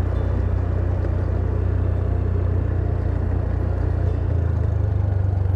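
Small motorcycle engine running steadily at low riding speed. Its note shifts slightly about four seconds in.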